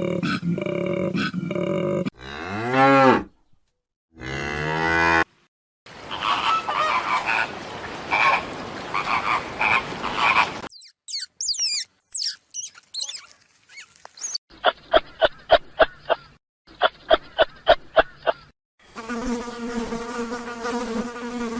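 A series of different animal calls spliced one after another with short silent gaps, among them a cow mooing and an insect buzzing. There are high gliding whistles about halfway through, then two runs of rapid pulsing calls.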